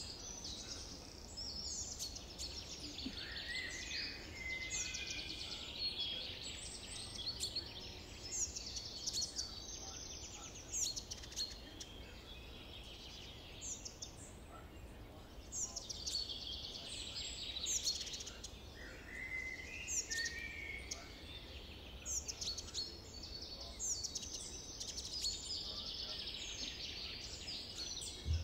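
Wild songbirds singing and chirping in repeated bursts of short notes and trills, over a faint steady background hum of the outdoors.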